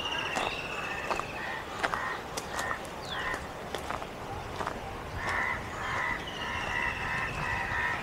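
Several birds calling in woodland: runs of short repeated notes and a few descending whistled calls, with scattered sharp clicks throughout.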